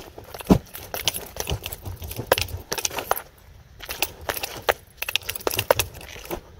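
Double nunchaku being swung, their chains rattling and jingling in quick, irregular clicks, with a sharp knock about half a second in and a brief lull just after three seconds.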